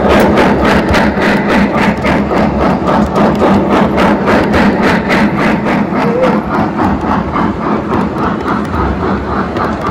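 O gauge model steam train running past with loaded coal hoppers: a fast, even beat of about four to five a second over a steady rumble of wheels on the rails, slowly fading as the locomotive moves away.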